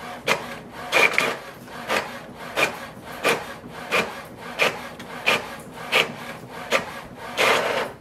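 HP OfficeJet Pro 9125e inkjet printer printing a page: the printhead carriage sweeps across with a rhythmic swishing rasp about three times every two seconds, over a low steady hum. A longer burst comes just before it stops near the end.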